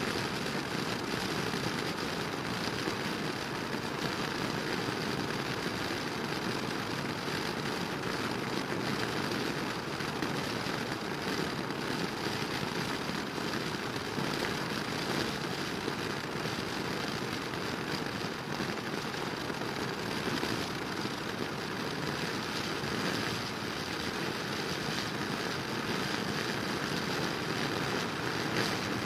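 Steady wind and road rush inside a motorcycle helmet at about 120 km/h into a strong headwind, heard through the helmet microphone, with no clear engine note standing out.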